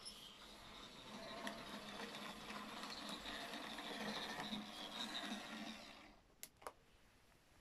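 OO gauge model Class 06 shunter running under its small electric motor, its wheels and the wagons' wheels rattling along the track, then stopping about six seconds in. Two small clicks follow shortly after it stops.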